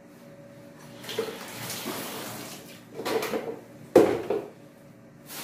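Water running from a kitchen tap as plastic bowls are rinsed in a steel sink, with plastic bowls knocking and clattering as they are handled and set down. The sharpest knock comes about four seconds in.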